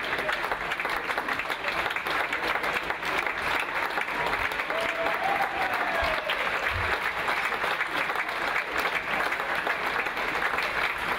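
Audience applauding steadily: many hands clapping in a dense, continuous patter, with a faint voice calling out briefly about halfway through.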